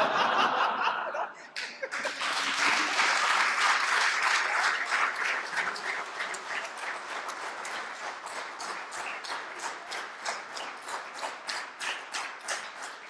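Audience laughing, then applauding. The clapping swells about two seconds in and slowly thins out to scattered individual claps.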